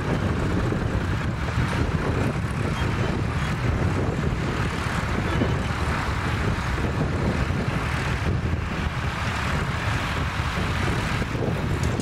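Massey Ferguson 3000-series tractor's diesel engine running steadily as it pulls a plough through the soil, with wind buffeting the microphone.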